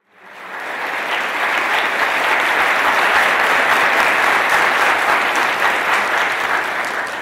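Audience applauding, swelling over the first second and starting to die away near the end.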